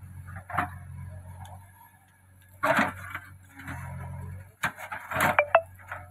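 Diesel engines of a backhoe loader and tractor running steadily under a series of irregular hard knocks and clatters as soil and stones from the backhoe bucket drop into the tractor's metal trolley. The loudest clatter comes about five seconds in, with a brief metallic ring.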